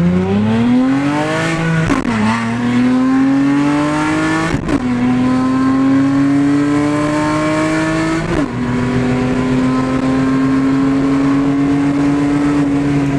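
Straight-piped 3.7-litre J37 V6 of a 2010 Acura TL SH-AWD, with no mufflers, resonators or catalytic converters, heard from inside the cabin accelerating hard through the gears of its six-speed manual. The engine note climbs, drops sharply at each of three upshifts, and climbs slowly after the last one.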